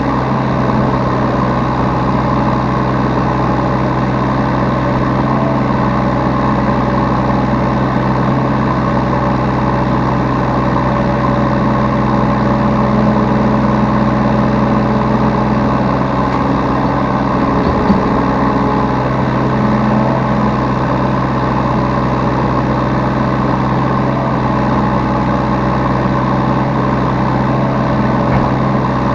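Yanmar B3Σ mini excavator's diesel engine running steadily at an even speed, heard from the operator's seat.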